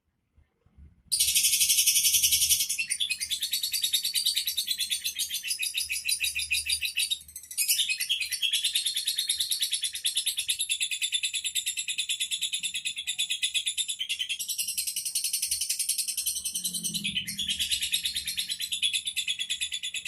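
Lovebird singing a long, fast, unbroken chattering song of rapid high-pitched trills, starting about a second in, with one brief break about seven seconds in.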